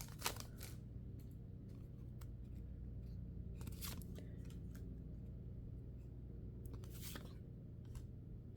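Quiet handling of Pokémon mini booster packs and cards: a few soft, short crinkles and clicks of foil wrappers and card stock, spaced out over a low hum.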